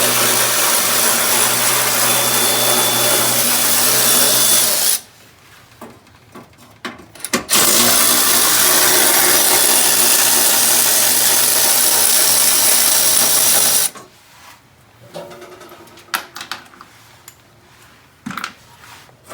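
Electric power tool, drill-like, running at a steady speed in two long runs of about five and six seconds with a short pause between. Light clicks and handling noises follow.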